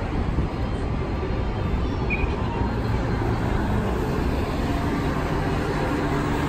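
City street traffic noise: a steady wash of passing cars and buses, with a low engine hum coming in a little over halfway through.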